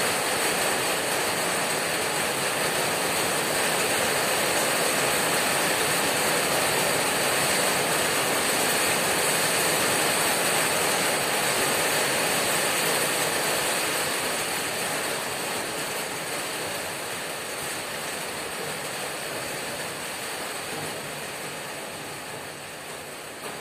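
Hammering rain on a corrugated tin roof: a dense, steady patter of drops on the metal sheeting that grows gradually quieter over the last ten seconds.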